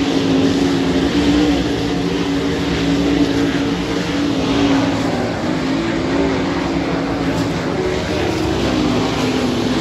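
Winged dirt-track sprint cars racing flat out around the oval, their V8 engines running loud and continuous, the pitch rising and falling as the cars go through the turns and down the straights.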